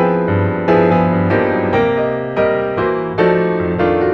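Background piano music: a note or chord struck about every half second, each one ringing and fading before the next.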